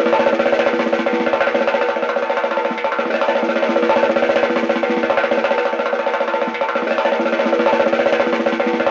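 Classic cartoon 'scramble' sound effect: a rapid, unbroken wood-block-like percussion roll over a few steady held notes, going on evenly without a break.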